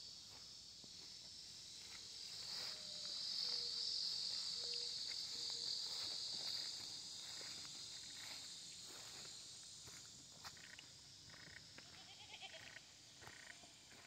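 Insects buzzing in a high, steady hiss that swells for a few seconds in the middle, with faint goat bleats and scattered footsteps.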